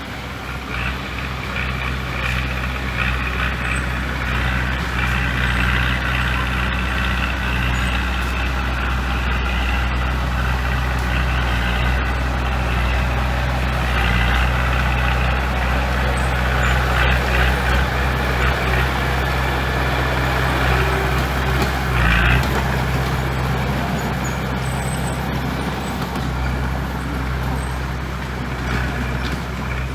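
Heavy diesel construction machinery running steadily under load, with a constant low engine drone and a rattling, clattering noise over it. About two-thirds of the way through comes one short, loud burst.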